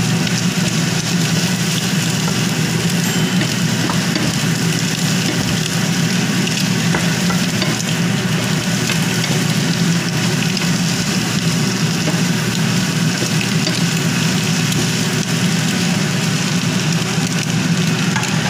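Sliced white bitter gourd and garlic sizzling steadily in a frying pan while being stir-fried, with faint scraping ticks as the slices are stirred.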